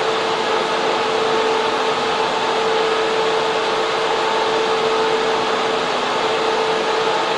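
Server cooling fans and air-conditioning units in a data center server room running steadily: a loud, even rushing whir with a constant hum-like tone riding on top.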